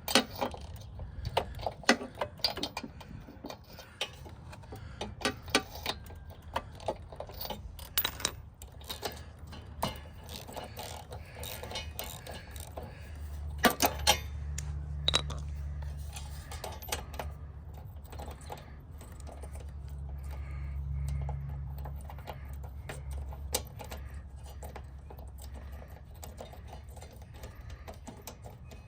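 Hand tools clicking and clinking against metal as the spark plug is taken out of a Kohler Courage XT engine, irregular sharp clicks heaviest in the first half, with a low hum underneath through the middle.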